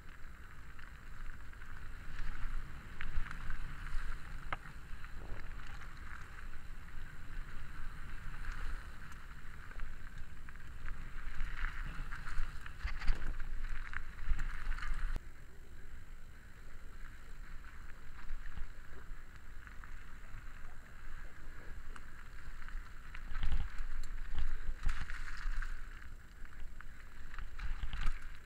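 Mountain bike riding fast down a gravel and dirt trail: tyres crunching and rumbling over stones, the bike rattling with sharp knocks over bumps, and air rushing over the camera microphone. It gets louder on the rougher, faster stretches.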